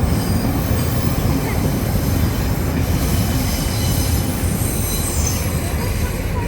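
Train running on rails: a steady, loud low rumble with high squealing tones from the wheels above it.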